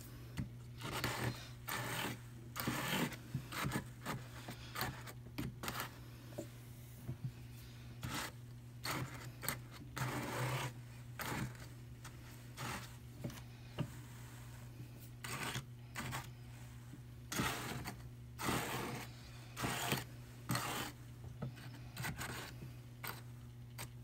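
Wool batt being peeled off the fine wire carding cloth of a Brother hand-crank drum carder: short, irregular scratchy swishes and rasps as the fibres pull free of the teeth. A steady low hum runs underneath.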